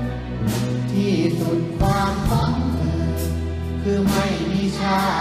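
A man singing a slow song with symphony orchestra accompaniment: long held vocal notes over sustained strings and low bass notes.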